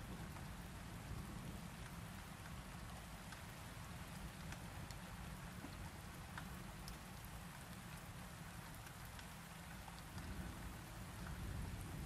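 Steady rainfall: an even hiss with scattered sharp ticks of drops striking a surface, over a steady low rumble.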